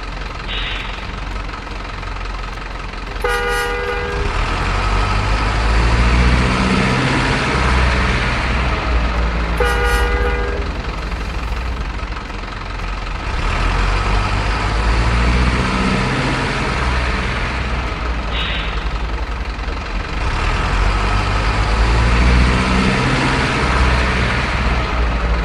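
Heavy diesel truck engine pulling hard, rising in pitch three times as it works up through the gears. Two short horn blasts come about three seconds in and again about ten seconds in.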